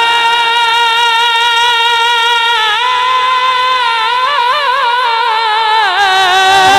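A male naat reciter's voice, amplified through a microphone, holding one long sung note that stays level for a few seconds, then winds through wavering ornamental turns before dropping to a lower note near the end.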